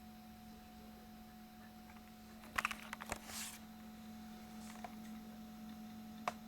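Apple Macintosh SE running as it boots, giving a faint steady hum. A quick cluster of clicks and rattles comes about two and a half seconds in, and a single sharp click near the end.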